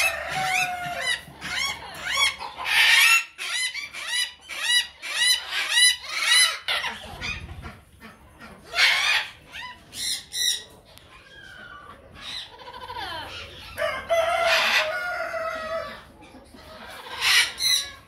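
Birds calling: a quick run of short calls that rise and fall in pitch, then several louder, harsh calls, one lasting about two seconds near the end.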